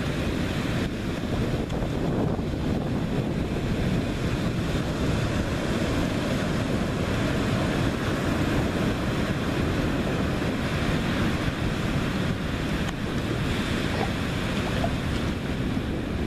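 Ocean surf breaking over a rocky reef: a steady rushing wash of waves, with wind buffeting the microphone.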